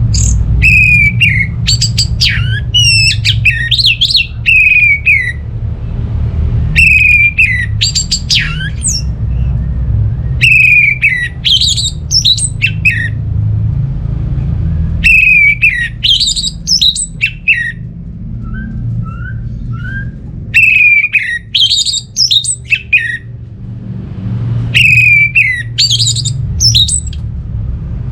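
Orange-headed thrush singing in loud phrases, each two to three seconds long and repeated about every four seconds. Each phrase opens with a sliding whistle and breaks into rapid high twittering notes. A steady low rumble runs underneath.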